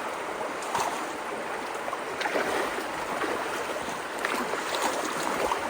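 Floodwater of a rain-swollen creek rushing steadily toward and through road culverts, with a few brief splashes.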